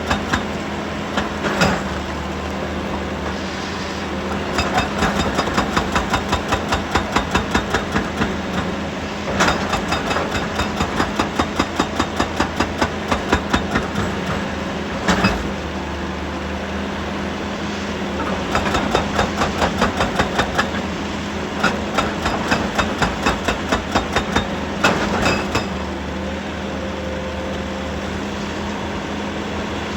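Heavy diesel machinery running steadily, with several stretches of rapid, even knocking at about three blows a second and a few single sharp knocks in between.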